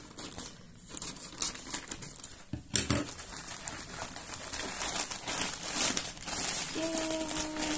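Thin plastic courier mailer crinkling and rustling as hands cut it open and pull a bubble-wrapped package out of it, with one thump about three seconds in.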